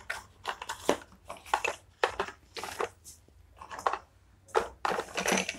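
Chalk scratching and tapping on a blackboard in short, irregular strokes as figures are written.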